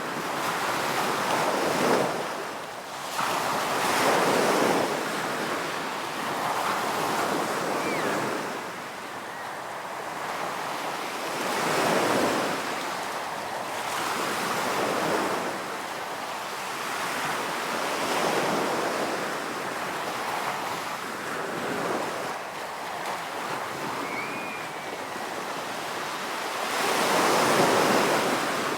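Ocean surf breaking and washing up the shore: a continuous rush of water that swells with each wave every few seconds and falls back between them.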